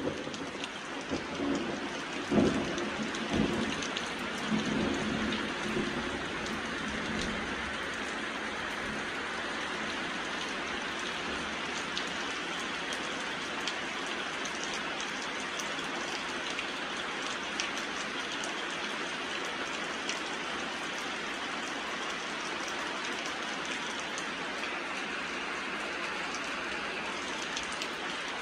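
Steady rain pouring down on roofs and trees. A rumble of thunder rolls through the first several seconds, loudest about two and a half seconds in, then only the even hiss of the rain remains.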